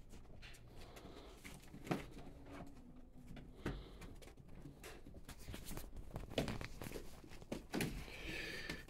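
Three-week-old Goldador puppies scrabbling about in a plastic wading pool: light scattered pattering and scratching of paws and claws on the plastic and towels, with fabric rustling. A brief high puppy squeak near the end.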